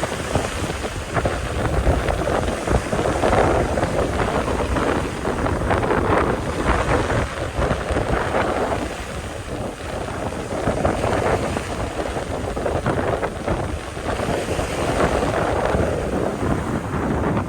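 Strong wind buffeting the microphone with a low rumble, over the wash of sea waves; the noise swells and eases in gusts every few seconds.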